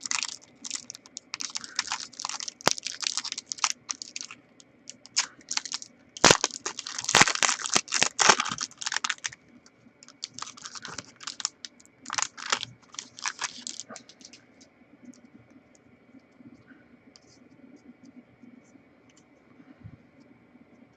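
A trading-card pack being opened: its wrapper crinkling and tearing, with sharp clicks as the cards are handled, in dense bursts for about the first fourteen seconds, then only faint handling ticks.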